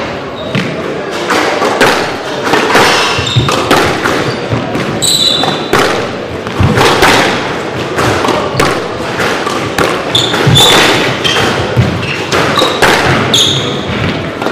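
Squash rally: the ball struck by rackets and hitting the court walls in an irregular run of sharp thuds, with short high squeaks of court shoes on the wooden floor.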